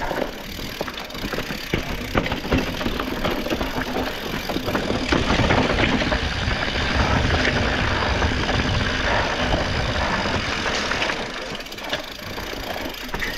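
A mountain bike rolling over rough, rocky trail, its frame and parts rattling with many small knocks. It is louder and rougher through the middle stretch.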